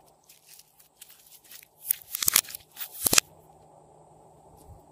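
Slime being squeezed and pulled in the hands, giving a run of sticky crackling and popping clicks. They grow loudest and thickest about two to three seconds in, then stop abruptly.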